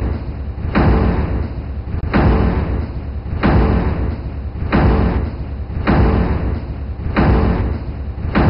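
Soundtrack beat of heavy booming hits, one about every second and a quarter, each dying away, over a constant low rumble.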